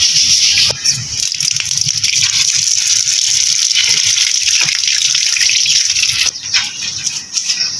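Water gushing and splashing into a box onto a cast-iron test weight, a steady hiss that eases briefly near the end.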